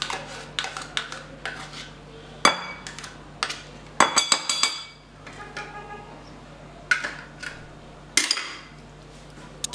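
Metal spoon clinking and tapping against a ceramic bowl in several quick bursts, each with a short ring, as chocolate pudding is scraped off the spoon into whipped cream.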